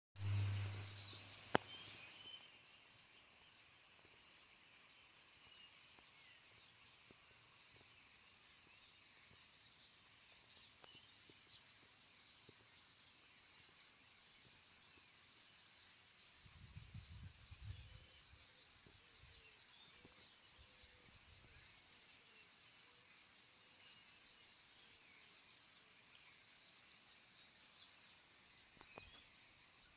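Birds chirping and singing faintly and continuously, with a sharp click about a second and a half in and a short low rumble a little past halfway.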